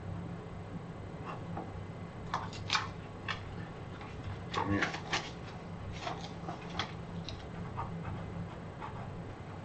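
Quiet meeting-room tone with a steady low hum, broken by scattered short rustles and clicks of papers and small objects being handled on the tables, the loudest about three and five seconds in.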